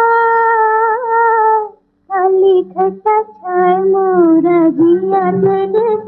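Hindi film song sung by a woman: one long held note with a slight waver, a brief break, then a flowing melodic line with sliding pitch over a steady low accompaniment tone.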